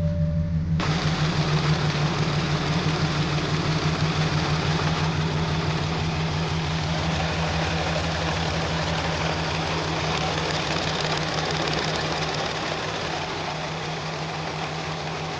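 Audi A7 engine idling with a low, uneven pulsing beat, consistent with the cylinder 6 misfire (P0306) that the car has logged. About a second in, a loud steady hiss joins the idle.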